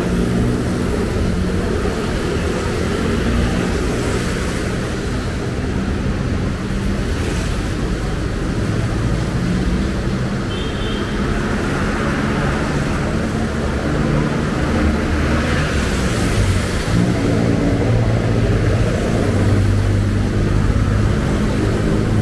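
City street traffic: several vehicle engines running close by, a steady, continuous mix.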